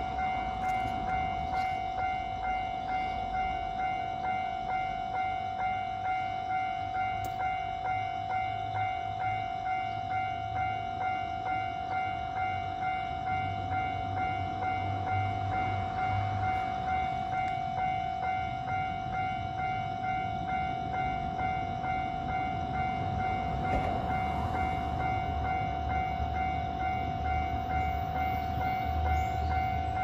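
Japanese railway level-crossing alarm ringing its electronic "kan-kan", one high note struck over and over in a fast, even rhythm, while the barriers are down and the red lights flash: a train is about to pass. A low rumble builds near the end.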